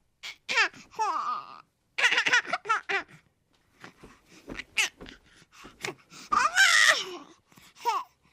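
Baby hippo cooing: a run of short, high-pitched squeaky calls with sliding pitch, broken by pauses, and one longer call about six and a half seconds in.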